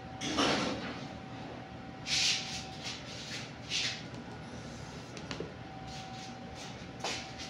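A few short rustling scuffs from someone moving about and handling things at a table, over a faint steady hum.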